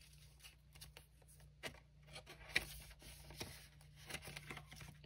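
Faint rustling and light ticks of polymer banknotes being slid into a paper cash envelope in a ring binder, with a couple of sharper clicks.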